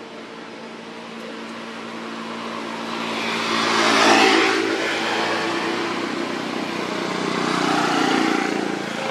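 A motor vehicle passing by: engine and road noise build to loudest about four seconds in and fade away, followed by a second, smaller swell near the end.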